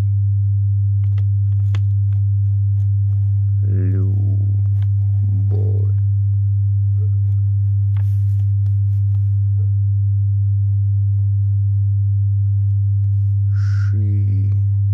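A loud, steady low hum on one unchanging pitch, with faint scratches and light taps of a pen writing on notebook paper, and a few short voice sounds.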